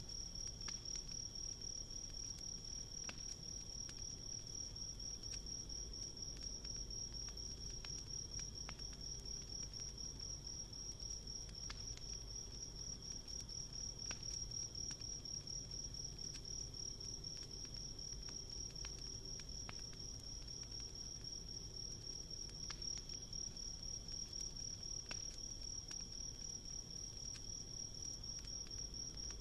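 Crickets trilling without a break, a steady high-pitched pulsing tone, with scattered light crackles and pops from a wood campfire.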